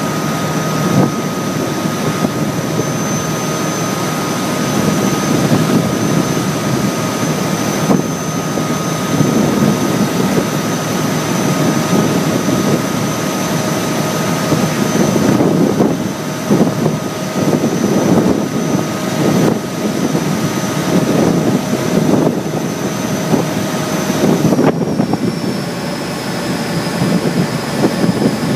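A river boat's engine running steadily under a loud wash of noise, with a steady high whine in the mix. Near the end the whine dips slightly in pitch.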